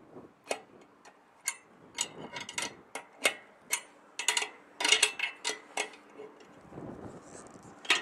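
Sharp metallic clicks from a wrench tightening the bolts on a microwave dish antenna's pole mount, irregularly spaced and bunched closer together around the middle, as the aligned antenna is locked down.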